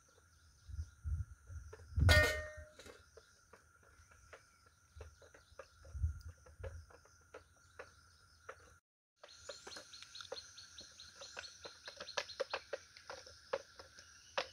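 A bamboo stick stirring a liquid mixture in an earthen pot: dull thumps and one sharp knock about two seconds in, then from about nine seconds in a quick run of light clicks and scrapes. A steady high insect drone and bird chirps sound behind it.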